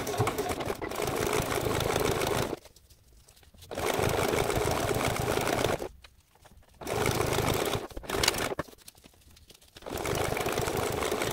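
Juki DX7 sewing machine stitching a fabric border onto a foam board. It runs steadily for a couple of seconds at a time, stopping and starting again three times.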